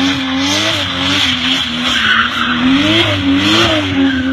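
Car drifting: the engine revs rise and fall over and over as the tyres squeal in a long skid.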